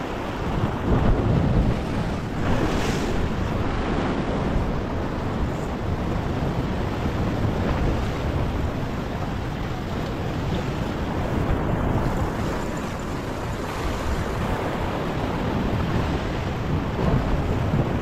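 Sea swell washing and breaking against a rock ledge, a continuous surf wash that swells louder about a second in and again near the end, with wind buffeting the microphone.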